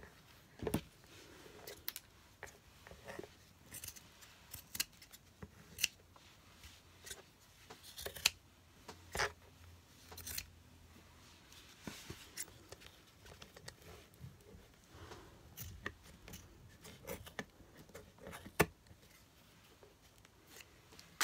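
Scissors cutting fabric: irregular short snips with pauses between them.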